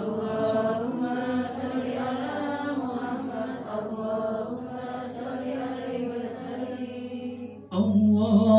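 Women chanting Islamic tahlil dhikr together in a steady, repetitive unison chant. It gets louder near the end as a voice through the microphone and loudspeaker comes back in strongly.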